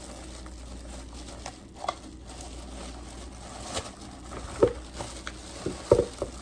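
Clear plastic bag crinkling and rustling as a juicer part is unwrapped and handled, with a few short knocks about four and a half and six seconds in.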